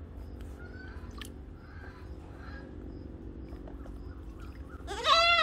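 A goat gives one loud bleat about five seconds in, a single call that rises and then falls in pitch. Before it there are faint splashes of an otter rolling in a shallow basin of water over a low steady hum.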